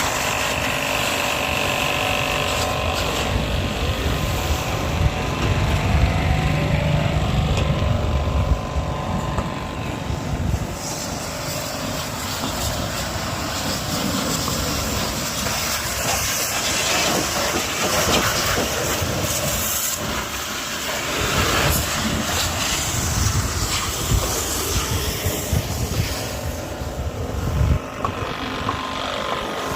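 High-pressure car washer running: a steady, noisy mechanical hum with a low rumble.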